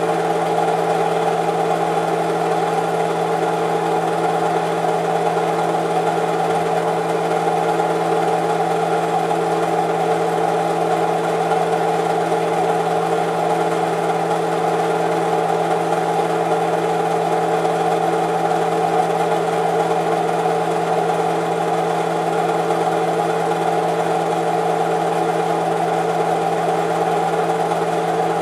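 Film projector running: a steady mechanical hum and whirr that holds unchanged throughout.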